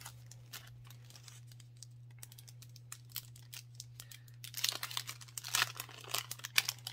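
Clear plastic sleeve crinkling as it is handled and opened to pull out the papers inside: soft rustles at first, then louder, busier crinkling from about four and a half seconds in.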